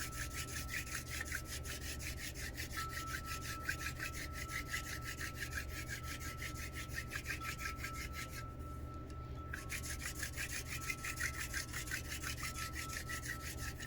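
Wooden hand-drill spindle spun back and forth between the palms in the notch of a hearth board, giving fast, even rasping strokes of wood grinding on wood, with a short break about eight and a half seconds in. The drill is at the smoking stage, grinding out char toward an ember.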